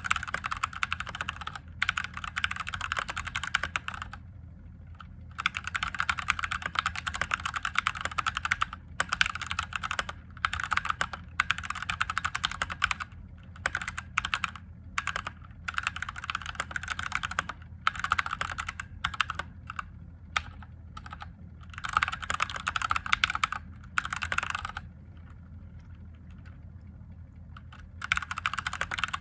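Typing on a mechanical keyboard with Gateron Yellow linear switches. The keys clack in quick runs of a second or more, broken by short pauses.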